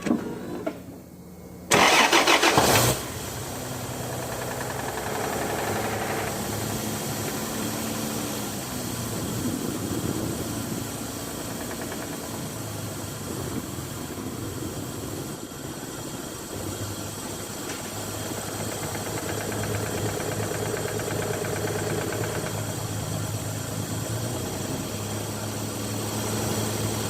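Toyota Land Cruiser 1FZ-FE inline-six petrol engine cranked and started about two seconds in, then running steadily at idle.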